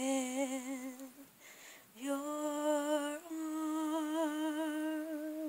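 A woman's unaccompanied singing voice holds a long note with vibrato, which fades out about a second in. After a short breath she holds a second, slightly higher note with vibrato for about three and a half seconds.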